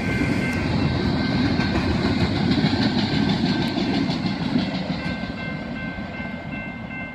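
Double-stack intermodal freight cars rolling past on steel rails, a dense rumble that fades from about five seconds in as the end of the train passes and moves away. A steady high ringing tone runs throughout.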